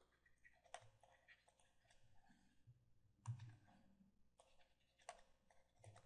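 Near silence with a few faint clicks of a stylus tapping on a drawing tablet while writing, and one soft low thump about three seconds in.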